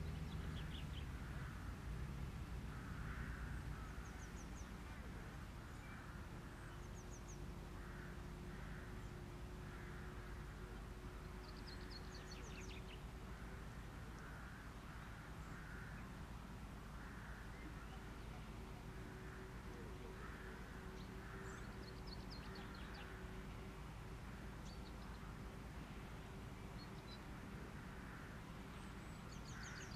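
Distant birds calling: many short calls repeating irregularly, with brief high chirps every few seconds, over a low rumble. A faint steady hum comes in about a third of the way through.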